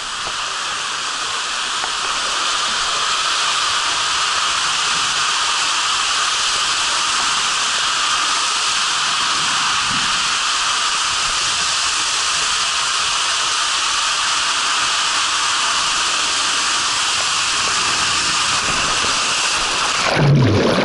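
Water rushing down an enclosed water-slide tube under a sliding rider, a loud, steady hiss. About twenty seconds in it swells into a big splash as the rider shoots out into the landing pool.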